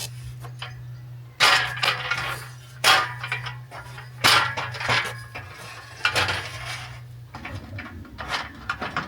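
Metal scaffold poles and fittings clanking and knocking as they are handled and fitted together: a run of sharp clanks with a short ring, the loudest three spread over the first half, with a low steady hum underneath that stops near the end.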